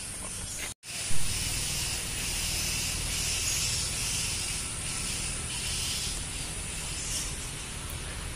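Steady outdoor background hiss with faint, higher-pitched patches now and then. The sound drops out briefly just under a second in.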